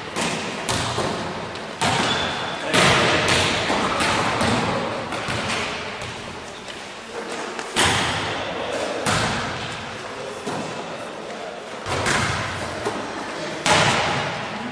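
Several volleyballs being passed, caught and dropping onto a wooden gym floor: irregular, overlapping thuds with an echo of a large hall.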